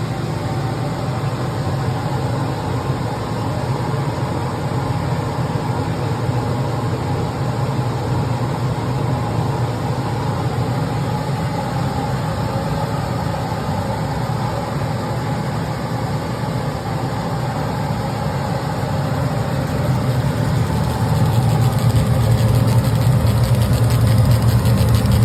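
Laser cutting and engraving machine running, a steady mechanical hum that grows louder about twenty seconds in.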